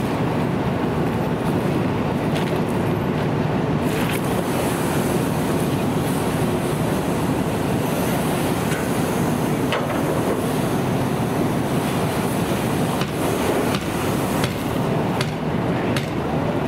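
Steady, loud rushing noise of a fire engine's running engine and pump feeding charged hose lines, with a few faint knocks of metal tools.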